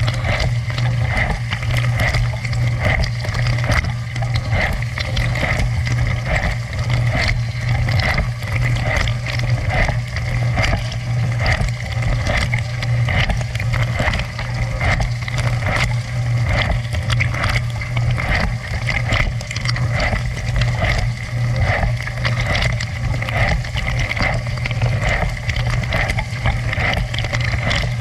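Dishwasher running a wash cycle: water sprays and splashes continuously inside the tub over the steady hum of the circulation pump motor.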